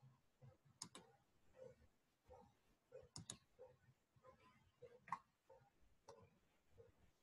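Faint, near-silent room with a few sharp computer-mouse clicks, two of them quick pairs, over a soft, regular tick about every two-thirds of a second.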